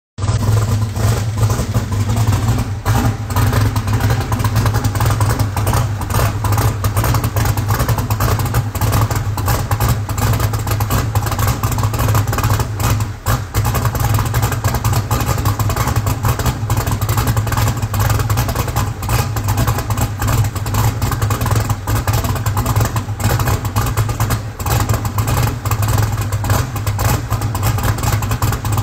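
Turbocharged car engine idling steadily, heard close to the exhaust tip, with a low, even note and no revving.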